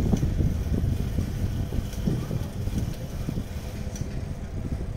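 Wind rumbling on the microphone of a moving bicycle, with tyre noise from rolling over the road. A few faint ticks sound now and then.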